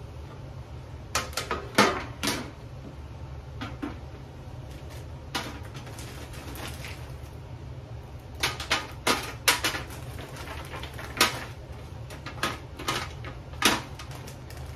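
Kitchen handling clatter over a steady low hum. A metal baking sheet knocks down onto the counter, with the loudest clatter about two seconds in. Then frozen peppers are set onto the metal sheet pan one after another, making scattered sharp clicks and knocks.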